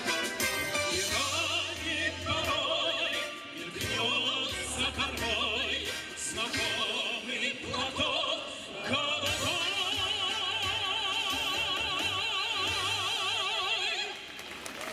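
Amplified live music with a singer in a full, classical style with strong vibrato, over a bass accompaniment. Near the end the voice holds one long wavering note for about five seconds.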